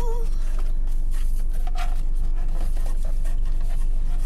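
A cardboard snack box being handled, with faint scrapes and light taps, over a steady low hum.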